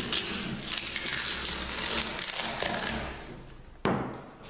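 Worn hook-and-loop sanding disc being peeled off the backing pad of a random orbital sander: a crackling tear of the hook-and-loop that fades out over about three seconds, followed by a single sharp tap.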